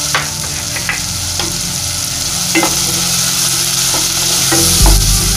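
Onions, garlic, tomatoes and green chillies sizzling in sesame oil in a non-stick pan while a wooden spatula stirs them, knocking and scraping against the pan a few times. Heavier low bumps come near the end.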